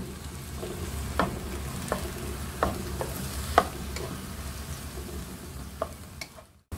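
Wooden spatula stirring and scraping minced chicken around a nonstick wok, with a gentle frying sizzle from the meat on a low flame. Several sharp taps of the spatula against the pan stand out, and the sound cuts off abruptly just before the end.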